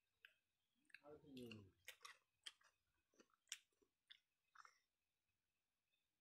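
Eating by hand: scattered soft clicks and wet smacks of fingers working rice and curry on a steel plate, mixed with chewing. A short voice sound falling in pitch comes about a second in.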